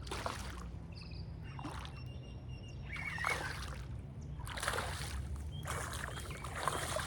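Hooked peacock bass splashing at the water's surface during the fight on the line, in about five short bursts, over a steady low rumble.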